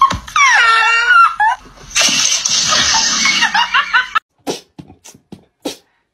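A long cry falling in pitch, followed by a person laughing hard. About four seconds in, a string of short, separate taps or clicks follows.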